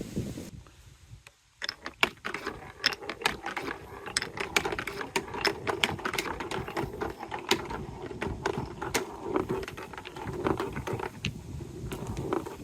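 Glass marbles rolling down a plastic TrixTrack marble-run course, with a rolling rumble and many quick irregular clicks as they knock against the track and each other. It drops almost to silence about a second in, then picks up again.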